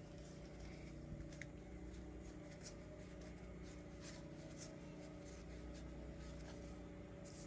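Faint rustling and soft ticks of Pokémon trading cards being flipped through by hand, over a steady low room hum.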